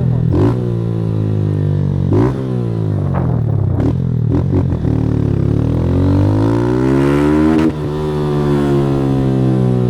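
Motorcycle engine through an aftermarket Fortuna Trioval exhaust, revving under way: the pitch climbs and falls repeatedly with sharp breaks as gears change. The longest climb cuts off abruptly about three-quarters of the way in.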